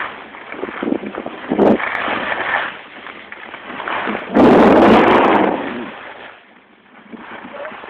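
Wind buffeting a phone's microphone while skiing downhill, a noisy rush that swells and fades, with the loudest gust about four and a half seconds in and a lull shortly before the end.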